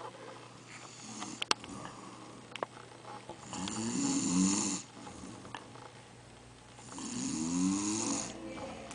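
A sleeper snoring: two long snores about three and a half seconds apart, each a rough drone that rises and falls under a breathy hiss. A brief sharp click comes about one and a half seconds in.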